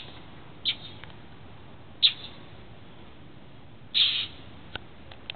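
Northern mockingbirds scolding with short, harsh, noisy calls, three in a row, the last a little longer: mobbing calls aimed at a cat.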